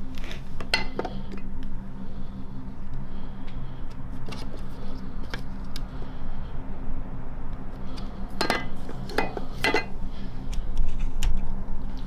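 Groceries being handled in a reusable shopping bag: cans and a clear plastic clip-lid box knocked together and lifted out, giving scattered clinks and clicks, thickest about eight to ten seconds in, over a steady low hum.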